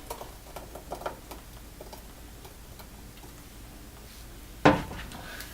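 Faint clicking and tapping of a utensil as ground roasted-coconut masala paste is put into a cooking pan, with one louder knock about four and a half seconds in.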